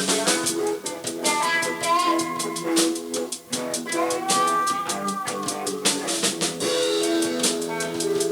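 Outro music with a drum beat and guitar.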